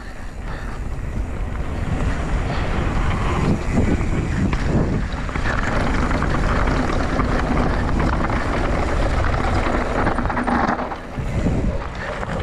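Wind rushing over the microphone and tyres rolling over a dirt trail as a Scott Gambler RC downhill mountain bike is ridden at speed, with scattered knocks and rattles from rough ground. The noise builds over the first two seconds as the bike gathers speed, and eases briefly near the end.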